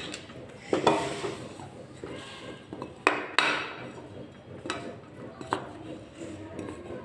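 A steel spoon knocking and scraping against a metal kadhai while stirring lumps of jaggery melting in water, in irregular clinks with louder knocks about a second in and about three seconds in.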